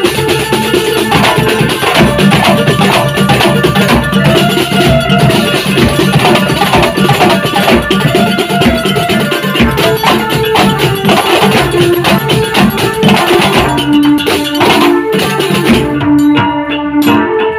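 Hadroh percussion ensemble playing a fast, dense rhythm on many rebana frame drums, large bass drums and a small hand drum, with a melody line over the drumming. Near the end the frame-drum strokes stop and a lower held tone carries on.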